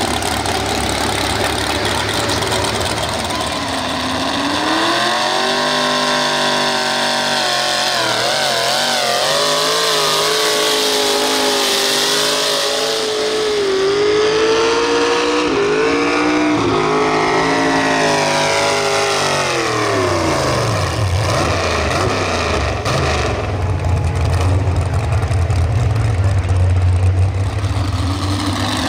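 Square-body pickup's pulling engine, with its exhaust stacks through the hood, revving up hard a few seconds in as it pulls a sled. It holds high revs with a wavering pitch for about ten seconds, then drops off around twenty seconds in to a low, steady idle rumble.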